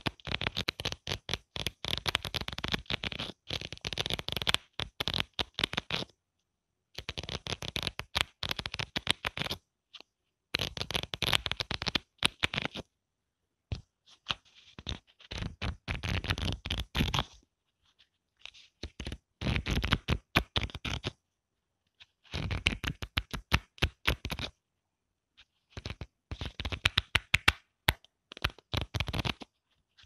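Pages of a thick book riffled at the corner with the thumb: a rapid fluttering patter of paper flicks. It comes in runs of two to four seconds with short pauses between, about six runs in all.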